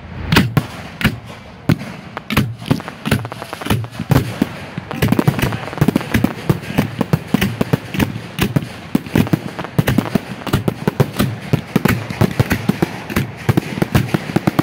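Fireworks finale barrage heard close up at the firing site: a rapid, overlapping string of aerial shell launches and bursts. It grows denser from about five seconds in, with many reports a second.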